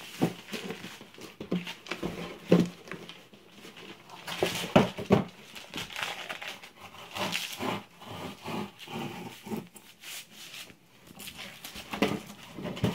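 Plastic and foam packaging crinkling and rustling, with irregular clicks and knocks, as the protective wrapping is worked off a sword blade by hand.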